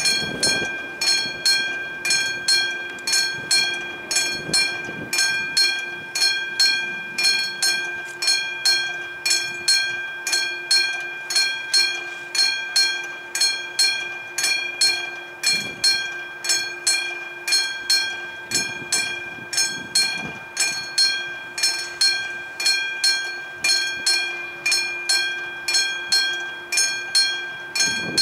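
Level-crossing warning bell, the classic electric bell of an SSSR crossing signal, ringing steadily at about two strikes a second, its tone hanging on between strikes. It is the crossing's warning that a train is coming.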